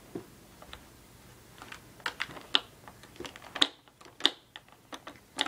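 Hard plastic toys on a baby's activity saucer clicking and clattering in quick, irregular taps, with a few sharper knocks.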